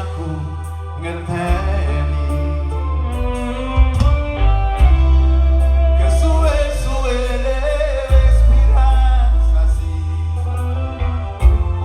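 A song with singing and guitar, played loud over a sound system, with heavy deep bass notes each held for a second or more.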